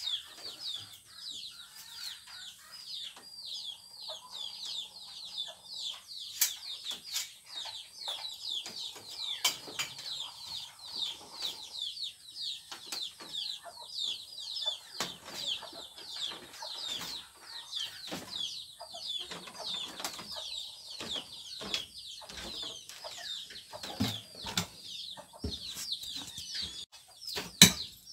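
Birds chirping without pause, a fast run of short falling chirps, with scattered sharp knocks and clicks over them.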